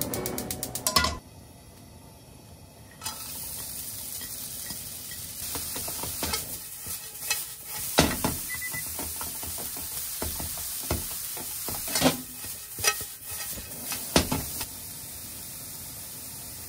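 Julienned carrot sizzling in a hot nonstick frying pan while being stirred and tossed with a silicone spatula. A steady sizzle sets in a few seconds in, broken by repeated scrapes and taps of the spatula against the pan, then the sizzle continues alone near the end.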